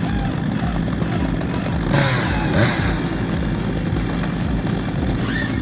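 An engine running steadily, its pitch holding constant.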